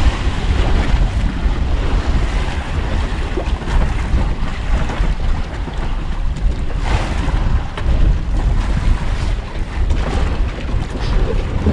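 Wind buffeting the microphone over the steady wash of sea water around a fishing boat, with a couple of louder gusts or splashes.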